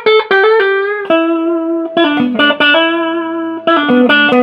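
Electric guitar playing a melodic riff of single sustained notes, clean and loud.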